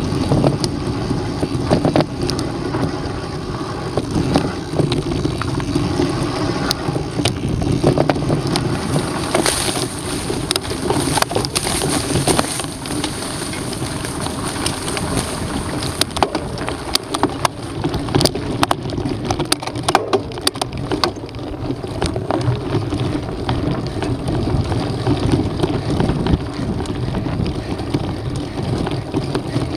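Mountain bike riding down a rough dirt and gravel trail: tyres crunching over the ground and the bike rattling and knocking over bumps and rocks, with steady wind buffeting the microphone. The knocks come thickest in the middle stretch.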